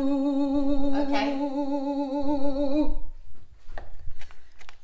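A man singing one long, wavering held note that ends about three seconds in. Then comes a quick run of knife strokes chopping red onion on a wooden chopping board.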